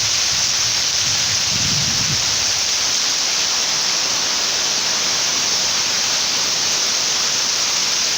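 Heavy storm rain pouring down in a steady, even hiss. A brief low rumble shows underneath about a second in.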